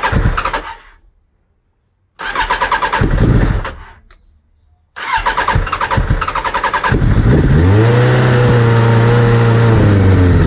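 Suzuki Bandit 1200's inline four-cylinder engine being turned over on its electric starter: one crank stops about a second in, a second runs from about two to four seconds without firing, and a third from about five seconds in catches about seven seconds in. The engine then runs steadily. It is a hard cold start after the bike has stood unused for weeks.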